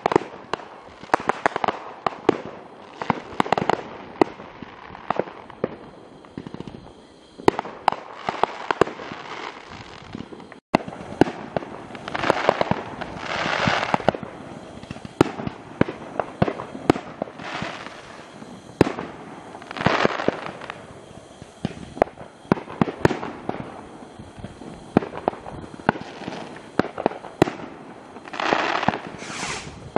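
Aerial fireworks bursting over and over in a string of sharp bangs. Several stretches of crackling hiss from crackling shells come about 12, 20 and 28 seconds in.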